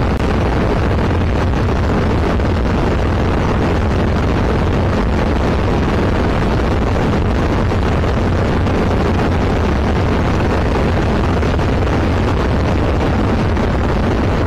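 Zenith CH701 light aircraft's engine and propeller droning steadily in flight, heard inside the cockpit with the rush of wind.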